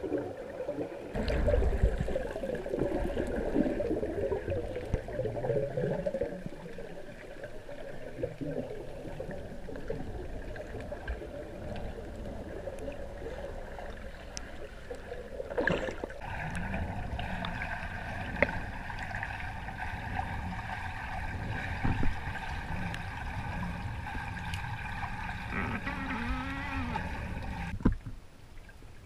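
Muffled gurgling and sloshing of water heard from underwater, as snorkelers swim and fin through a clear spring, with a few sharp knocks and a sudden drop in level near the end.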